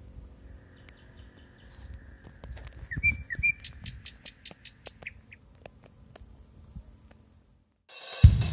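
Birds chirping in short rising and falling calls over a low rumble, with a run of sharp clicks after them. Near the end it goes quiet, then music with bass and electric guitar starts.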